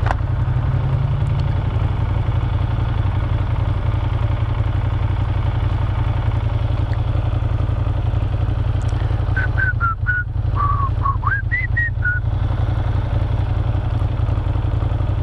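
Ducati Monster 1200S L-twin engine running steadily while cruising, with wind and road noise over it. About ten seconds in come a few short, high whistled notes.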